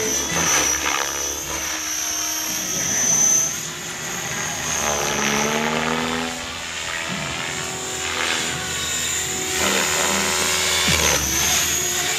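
Align T-Rex 550 electric radio-controlled helicopter flying aerobatics, its high motor and rotor whine rising and falling in pitch as it manoeuvres and passes.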